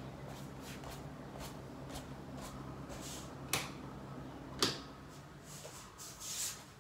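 Soft rustling of bedding and movement, then two sharp clicks about a second apart, a wall light switch being flipped, over a low steady hum that stops about five seconds in.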